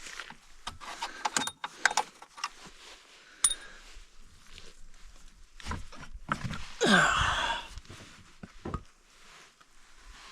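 Scattered metallic clinks and knocks of small metal objects being handled, with a louder rattling scrape about seven seconds in.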